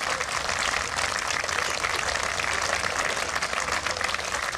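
Applause from a group of people: a steady, even patter of clapping.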